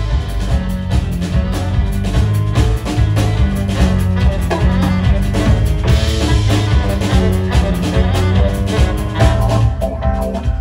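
Live band playing an instrumental passage: a drum kit keeps a steady beat under guitar and a strong bass line.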